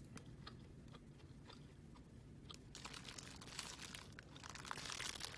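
Faint close-up chewing and biting into a Taiwanese rice ball, with small crunches and the crinkle of the plastic bag wrapped around it. The crinkling is strongest between about three and a half and five seconds in.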